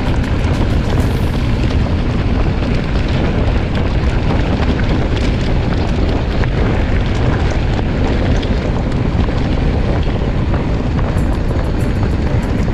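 Wind buffeting the microphone of a camera on a moving mountain bike: a loud, steady low rumble with no break.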